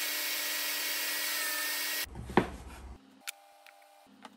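SawStop table saw running, its blade spinning with a steady hiss, then cut off abruptly about two seconds in. A short sweeping sound follows, then faint clicks of wooden frame pieces being set down.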